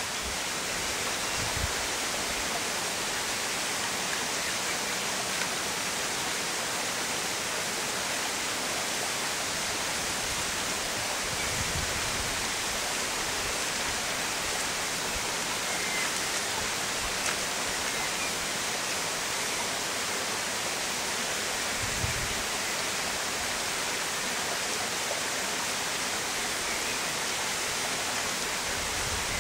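A steady, even hiss with no pitch to it, broken by three faint low thuds about ten seconds apart.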